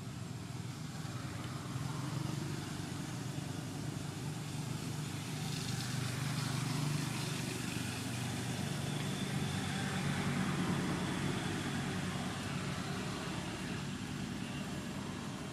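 Steady low rumble of motor traffic, swelling about a third of the way in and easing off near the end.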